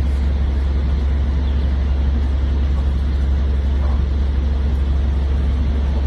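A steady, loud low hum with an even rushing noise over it, unchanging throughout, and a couple of faint short chirps about one and a half and four seconds in.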